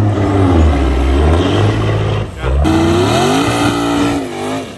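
A semi truck's diesel engine running deep and loud as the truck drives by. About halfway through it cuts to a classic Chevrolet Nova's engine revving up as the car accelerates past, its note rising in pitch and then levelling off.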